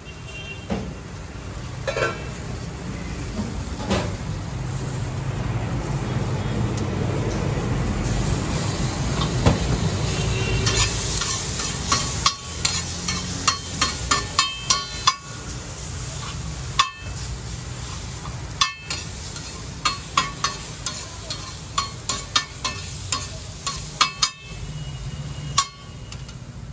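Paneer Manchurian and vegetables frying on a flat iron tawa, a sizzle that builds over the first ten seconds or so. From about halfway through, a steel spatula clacks and scrapes against the tawa in rapid, irregular strokes as the mixture is chopped and tossed.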